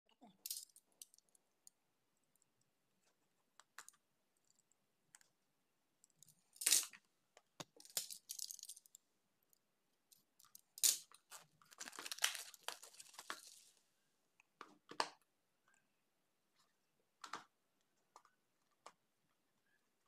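A small cardboard product box handled and cut open with a utility knife: scattered taps and clicks as it is turned over, and several scratchy bursts in the middle as the blade slices through the box's tape seal.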